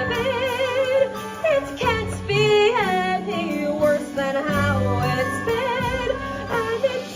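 A female voice sings long held notes with wide vibrato over a musical accompaniment, in a musical-theatre style.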